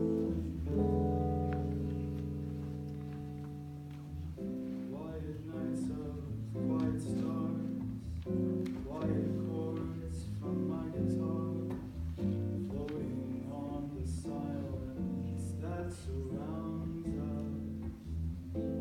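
Solo guitar playing an unaccompanied jazz introduction: a chord rings out for a few seconds, then picked notes and chords follow in a loose, flowing phrase.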